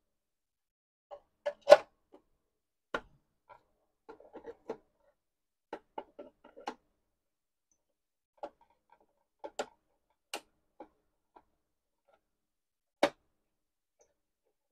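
The casing of a dental chair control board is set down over the circuit board, and its screws are then driven in with a hand screwdriver. The sound is a scattered run of clicks and knocks, with a sharp knock about one and a half seconds in and another near the end.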